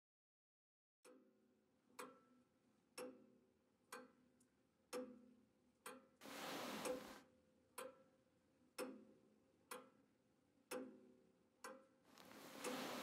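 Faint, even ticks about once a second. A short swell of hissing noise comes around the middle, and hissing builds up near the end.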